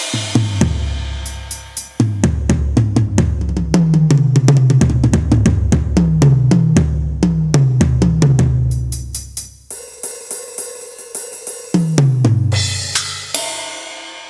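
Drum-kit samples triggered from an Avatar PD-705 percussion pad in Thai parade-truck live-drum style: busy fills of snare, cymbals and deep tom hits that drop in pitch, stopping about ten seconds in. A few more hits follow near the end, then a cymbal crash that rings out.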